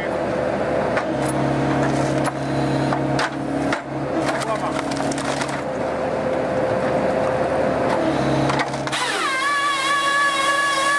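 Excavator-mounted firewood processor head at work: a steady engine and hydraulic hum with sharp cracks and knocks of logs being cut and split. About nine seconds in the sound changes abruptly to a whine that rises and then holds steady.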